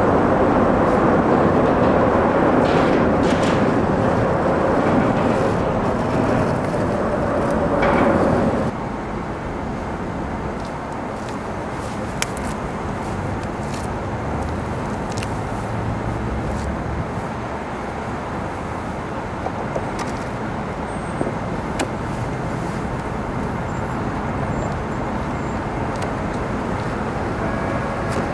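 An elevated train rumbles past overhead with a steady whining tone. About nine seconds in, it cuts off abruptly to steady city street traffic noise with a few faint clicks and knocks.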